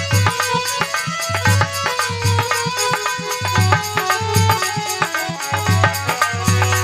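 Instrumental interlude of a Rajasthani folk bhajan: a steady hand-drum beat with sharp percussive clicks and a held melody over it, no singing.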